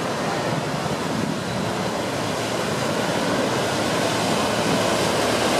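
Steady rushing noise of water and wind heard from aboard a moving river boat, growing a little louder toward the end.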